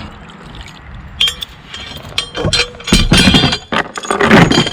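Water splashing and gear clinking against a fishing kayak, with two long, loud noisy bursts about three and four seconds in.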